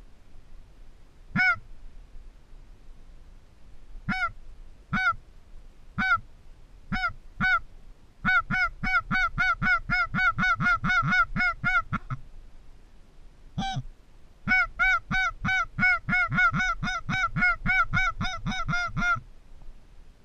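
Hand-blown duck call sounding a series of nasal quacks: about six single notes, then a long rapid run of about five quacks a second, one more single note, and a second long run.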